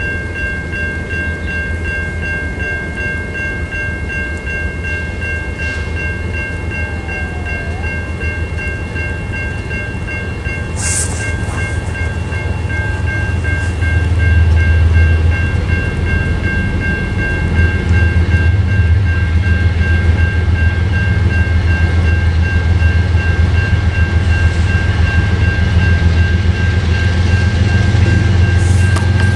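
An approaching diesel locomotive: its deep rumble builds, growing louder about halfway through and again a few seconds later. A steady, faintly pulsing high-pitched tone runs throughout, with a brief hiss about eleven seconds in.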